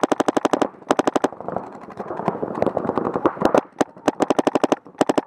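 Paintball markers firing in rapid bursts, over ten evenly spaced shots a second, with short breaks between bursts and a busier stretch of overlapping fire in the middle.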